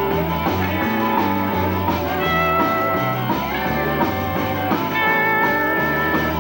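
Rock band playing an instrumental break, with a guitar line carried over a changing bass line.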